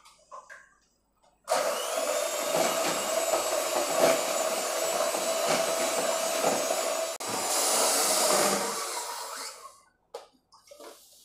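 Electric hand mixer running at speed, its beaters whipping cream in a plastic bowl. It starts abruptly about a second and a half in and runs with a steady hum. There is a brief break just past seven seconds, then it runs on with more hiss and winds down and stops near ten seconds.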